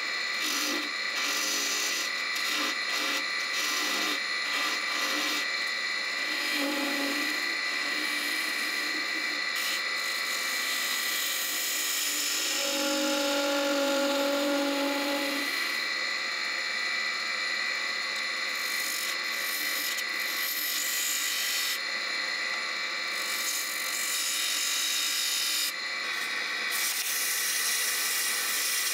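Wood lathe running with a steady high whine while a hand-held turning tool scrapes and cuts the spinning wooden goblet stem, with a low humming tone for a few seconds midway. Near the end, sandpaper starts rubbing on the spinning wood.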